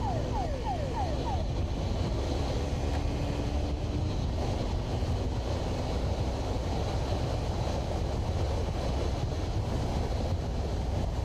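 Motorcycle engine running at road speed under heavy wind rush on a helmet-mounted camera, a steady rumble and roar. A quick run of short falling chirps sounds in the first second or so.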